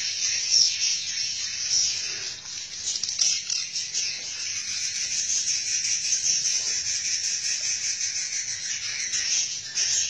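Dense, continuous high-pitched twittering of swiftlets.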